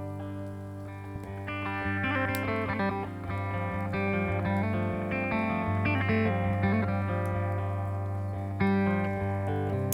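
Instrumental guitar intro in a slow desert-blues style: picked melody notes over a steady low drone note.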